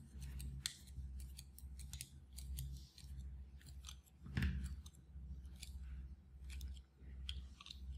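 Screwdriver turning a small screw in a slingshot's metal band clamp, giving irregular light metallic clicks and scrapes as the flat rubber band is clamped tight onto the fork tip. One louder bump about halfway through.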